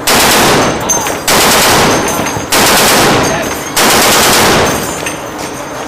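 Ship-mounted heavy machine gun firing four short bursts of automatic fire, each about a second long, in quick succession.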